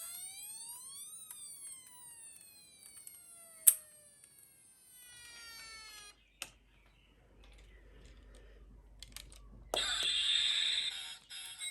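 Toy emergency minicar's electronic siren sounding one slow wail: a pitch rising for about a second, then falling slowly for about five seconds and fading out, with a sharp click partway through. Near the end a short, harsh, noisy burst.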